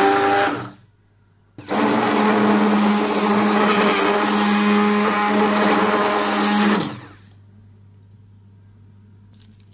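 Electric hand-held stick blender puréeing cooked pumpkin in a metal pot. It runs briefly and stops, then starts again after about a second and runs steadily for about five seconds before cutting off.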